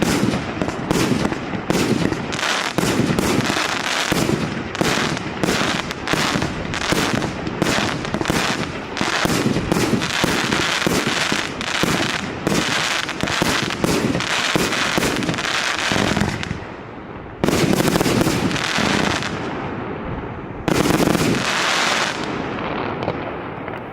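Maxsem 'Never Alone' MC12150 multi-shot firework firing a rapid, continuous volley of launches and bursts. The volley stops about two-thirds of the way through, then two more loud bursts follow, each with a trailing crackle, and the sound fades away near the end.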